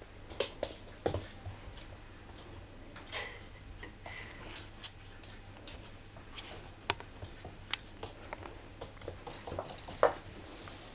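Puppy's claws clicking and pattering on a laminate floor, irregular light taps, with a few sharper knocks, the loudest about seven and ten seconds in.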